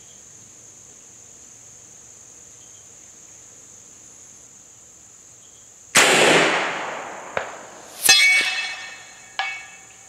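Crickets chirping steadily, then about six seconds in a single loud shot from a BinTac MCAR 457 big bore air rifle that fades over a second or so. About two seconds later comes a sharp metallic clank that rings on, then another click.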